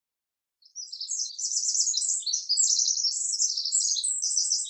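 Songbird chirping in rapid high trills and twitters, starting about half a second in.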